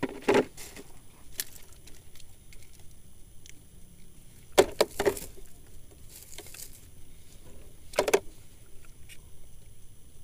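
Handling noise in a small boat: a few short knocks and clatters, loudest at about four and a half seconds and again at about eight, with light rustling and ticks between, as a caught fish is unhooked and tackle is moved in the box.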